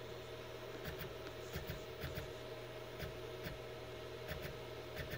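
Faint steady hum with about nine soft, irregular clicks as a DIY 3D printer's Y axis is jogged in small steps from its LCD controller.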